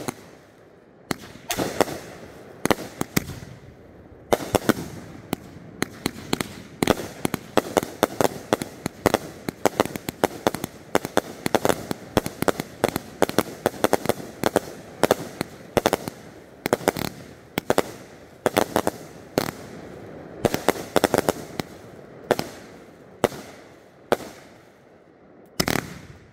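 Consumer aerial fireworks firing a dense, rapid barrage of sharp bangs and crackles with only brief lulls, typical of a multi-shot fireworks finale. The barrage thins out shortly before the end, with a last few bangs.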